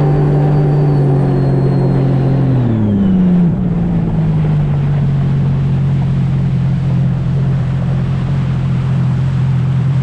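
Sea-Doo RXT-X personal watercraft's supercharged Rotax three-cylinder engine running under way, easing off about three seconds in with its pitch dropping, then holding a steady lower speed. A faint high whine falls away with it.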